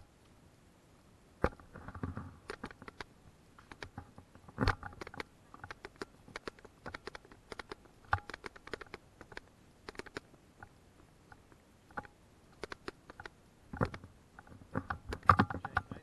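Irregular light clicks and knocks of footsteps on a narrow wooden plank walkway and through undergrowth, with a few heavier thudding steps, more of them near the end.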